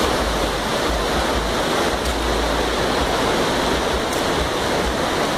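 Heavy rain and muddy floodwater rushing across a flooded street, a steady, loud hiss of running water.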